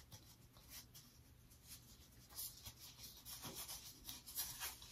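Faint rubbing and scraping of fingertips pressing a sliver of shaving soap into a loading bowl and spreading it thin, the strokes coming a little more often in the second half.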